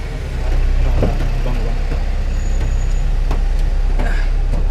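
A vehicle engine idling with a steady low rumble, joined by a few short knocks.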